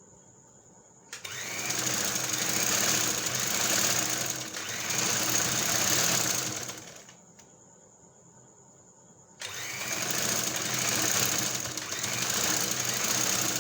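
Sewing machine running in two stretches of several seconds, stitching a seam. It starts suddenly about a second in, stops at about seven seconds, and starts again about two seconds later.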